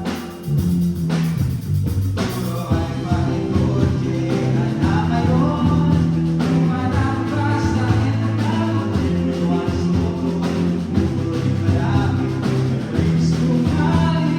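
Loud recorded music with singing, a steady bass line and drums, played back over a sound system.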